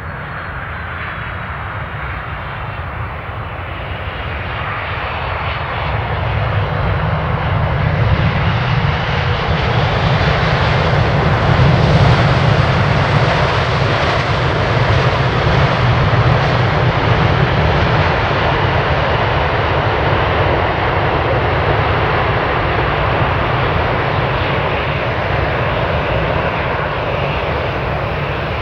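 Four-engine Boeing 747-400 jetliner landing and rolling out along the runway, its engine roar with a deep rumble. The roar swells to its loudest about twelve seconds in as the jet passes, then slowly eases off as it rolls away.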